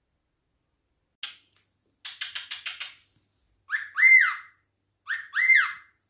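A cockatiel calling: a short scratchy chirp, then a quick run of chattering chirps, then two whistles, each a short note followed by an arched whistle that rises and falls.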